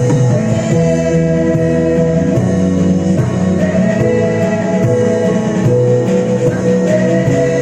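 Worship band playing an instrumental passage of a song without vocals: guitar over held chords, with a steady beat.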